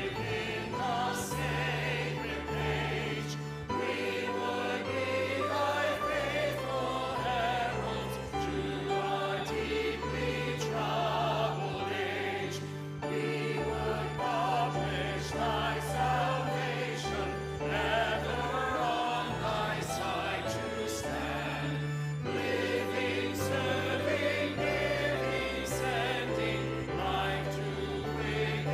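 A choir singing a hymn over instrumental accompaniment, with held bass notes under wavering voices.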